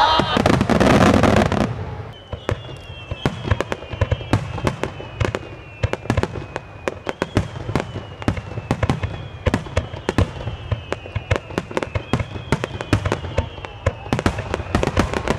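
Aerial fireworks bursting: a loud, dense burst for the first two seconds, then a rapid, irregular series of sharp bangs and crackles.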